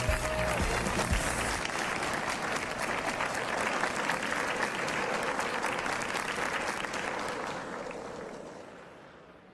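Crowd applauding, with the party music stopping about a second and a half in; the applause fades away over the last two seconds.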